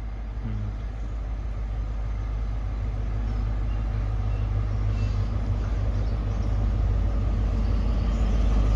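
Class 43 HST diesel power car approaching, its engine hum growing steadily louder as the train runs in.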